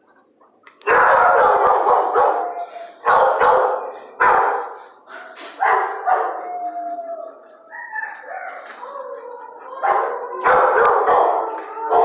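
Shelter dogs barking and howling in a kennel block. Loud barks start about a second in and come in bursts every second or two, with drawn-out howling tones between them.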